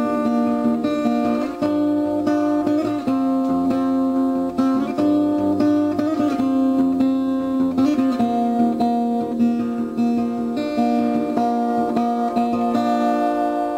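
Background music: an acoustic guitar picking a melody over held chords.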